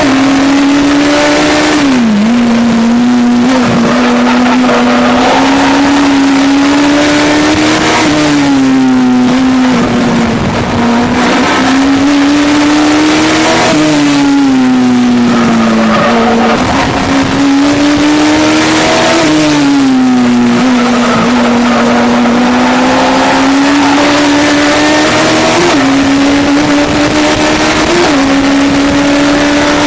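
Legends car's Yamaha motorcycle four-cylinder engine at racing speed, heard from inside the cockpit. The engine note climbs steadily and drops sharply several times as the driver lifts and shifts through the corners, with two quick rev blips near the end.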